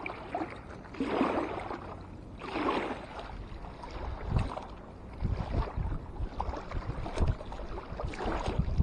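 Small waves lapping and swishing at a sandy lakeshore, with two louder swells early on; from about halfway through, wind rumbles on the microphone.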